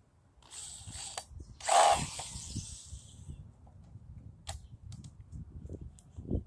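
Two short bursts of a small mechanical tool running, the second louder, followed a couple of seconds later by a few sharp clicks.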